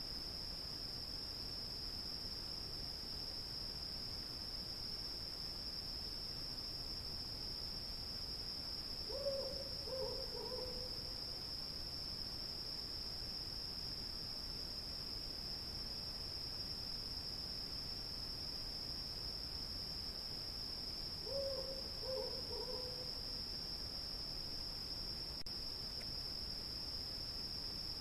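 Crickets chirring in a steady high-pitched chorus. Twice, about twelve seconds apart, a short series of low hooting notes is heard over it.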